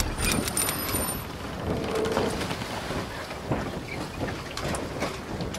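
A steady rushing noise from a logo intro sound effect, with a few faint high tones in the first second.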